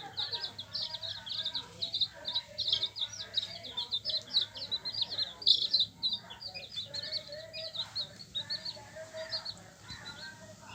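A brood of hen chicks peeping, many short high chirps overlapping several times a second, thinning out and growing quieter near the end.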